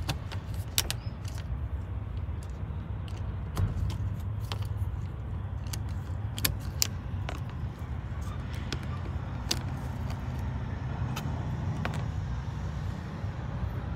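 Scattered sharp clicks and small scrapes of a utility knife blade prying plastic screw caps off a rubber-covered floor trim panel, over a steady low rumble.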